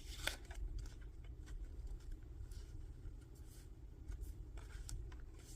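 Paper being handled on a craft table: a sharp paper tap shortly after the start, then a few faint brushes of paper, over a low steady hum.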